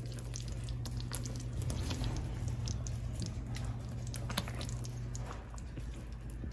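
Thick curry gravy squelching and popping in a pan as a spatula moves the chicken meatballs, with many small scattered clicks, over a steady low hum that stops about five seconds in.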